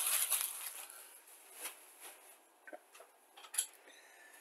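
Handling of a cardboard model kit box: a brief rustling scrape at the start, then a few faint light taps and clicks.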